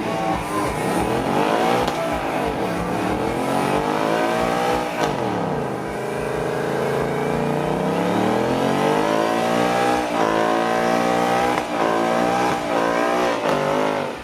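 Ford Mustang engine revving, its pitch climbing and falling several times, holding steady briefly midway, then a run of short quick revs near the end.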